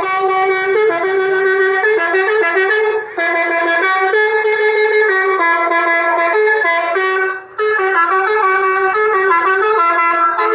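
Electronic 'telolet' bus horn module playing a melody of quick stepped notes, loud and continuous apart from two brief breaks about three and seven seconds in.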